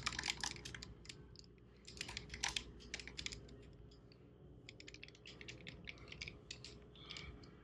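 Several short runs of quick, small clicks as a hand tool turns the bolts of an engine's lower cover.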